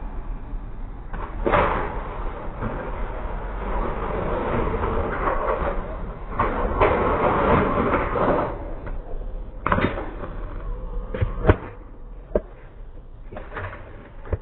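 BMX bike on a metal stair handrail: a long scraping grind of the pegs along the rail, then several sharp knocks and bangs of the bike hitting down, the loudest about eleven and a half seconds in.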